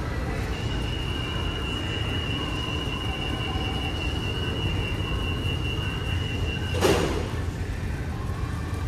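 Low rumble of a Singapore MRT train, with a steady high-pitched tone for about six seconds that ends in a single sharp knock.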